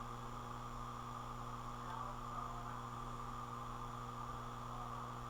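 Steady electrical mains hum with a stack of even overtones, over a faint hiss.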